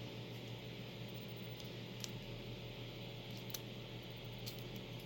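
A few faint, sharp clicks and taps of small metal padlock parts being handled as the opened lock is worked on with a shim, over a steady low electrical hum.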